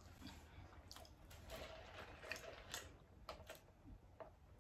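Faint chewing of french fries: soft, scattered wet mouth clicks and smacks.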